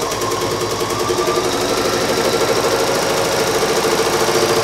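Bernina sewing machine running at a steady speed, stitching a seam: a motor hum with the rapid, even tapping of the needle.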